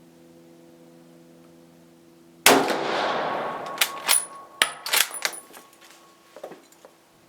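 A single .30-06 shot from a Brazilian M1908/34 bolt-action Mauser rifle, echoing and fading over about a second. Then a quick run of sharp metallic clacks with a ringing clink as the bolt is worked, and a few faint clicks near the end.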